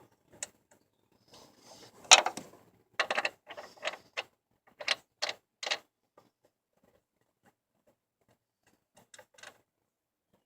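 Scattered, irregular clicks and knocks: a cluster of sharp ones in the first six seconds, the loudest about two seconds in, then a few faint ticks near the end. There is no running-engine sound.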